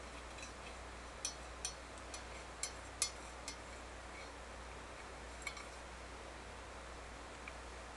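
A kitten's paws and claws tapping on the glass top of a bathroom scale: a quick run of about six sharp, light glassy clicks, then one more a couple of seconds later.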